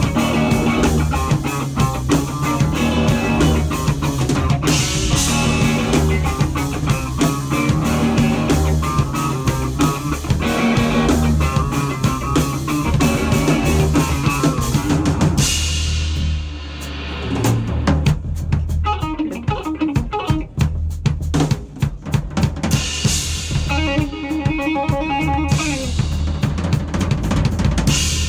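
Live rock band playing an instrumental passage on electric guitars, bass and drum kit. About halfway through, the sound thins out to sparse drum hits for several seconds, then the full band comes back in.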